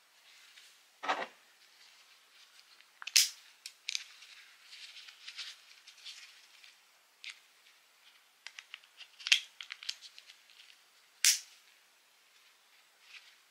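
A NITECORE NSC10 shoulder clip being handled and snapped onto a flashlight's rail: several sharp clicks, the loudest about three, nine and eleven seconds in, with a scraping snap about a second in and softer ticks and rattles of the parts between them.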